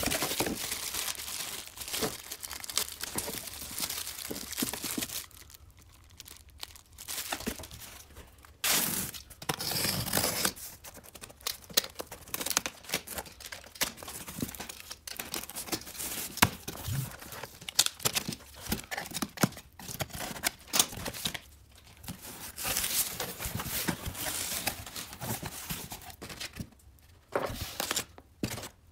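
Cardboard parcel being opened by hand: packing tape tearing off the cardboard and crumpled kraft packing paper rustling and crinkling, in irregular bursts with small knocks of the box.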